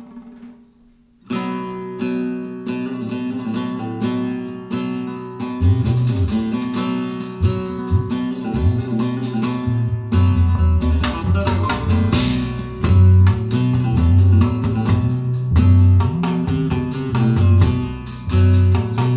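Recorded music played back through Dali Ikon 5 mk2 hi-fi loudspeakers and picked up in the room: a guitar-led track starts after a short pause about a second in, and a deep bass line joins about five seconds in.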